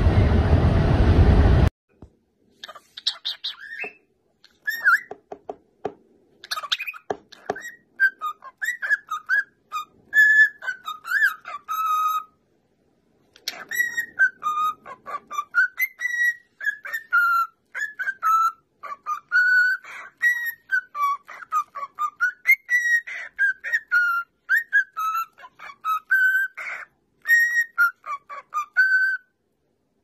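Cockatiel whistling a tune: a long run of clear whistled notes gliding up and down, with a few short chirps and clicks before it begins.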